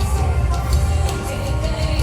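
Live band music from a concert recording: a full band playing with heavy bass and drum hits under sustained pitched instrument tones.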